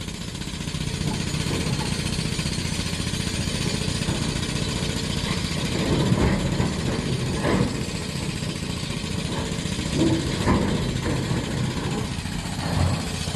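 Diesel engine of a construction machine running steadily, with a few knocks.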